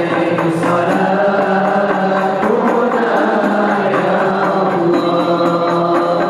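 Young male voices chanting an Arabic devotional qasidah through microphones, in long held, melismatic notes.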